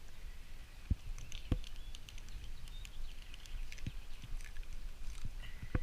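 Knife work on a rainbow trout being filleted: a few soft knocks and taps as the fish and knife are handled, with faint high ticks in between.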